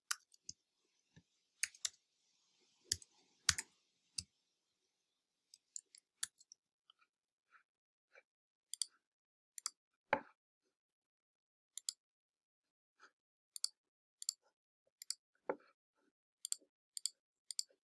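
Sparse, irregular clicks of a computer keyboard and mouse, single sharp taps with gaps of up to a second or more between them, as form fields are typed into and options clicked.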